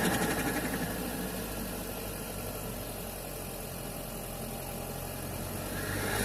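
1.8-litre turbocharged four-cylinder engine of a SEAT Ibiza Cupra idling, heard through its intake from inside the airbox. The sound dies down over the first second after a rev and begins to rise again near the end.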